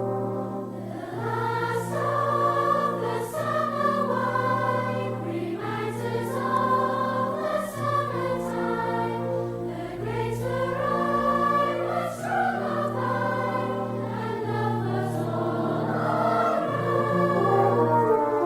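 Closing music: a choir singing over a steady held low note.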